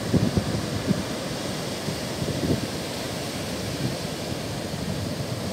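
Rough sea surf breaking steadily on a beach, the heavy swell stirred up ahead of Cyclone Fani. Wind buffets the microphone in gusts, strongest in the first second and again around two and a half seconds in.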